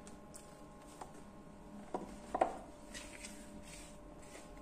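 Faint rubbing of a hand mixing flour and water in a plastic bowl, with two short light knocks about two seconds in.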